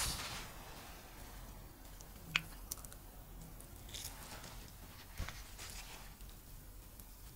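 Quiet handling sounds of a metal spoon scooping soft butter from a glass bowl and dabbing it onto dough: soft squishing and scraping, with one sharp click a little over two seconds in and a few lighter taps.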